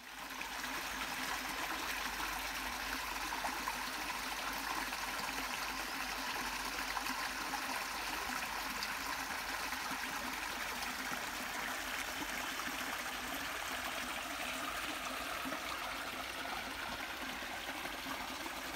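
Small waterfall on a little woodland creek, water splashing and running steadily. It fades in from silence at the very start.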